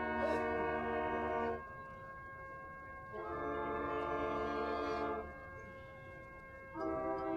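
Drum corps brass line playing long held chords: three sustained chords of about two seconds each, separated by short pauses.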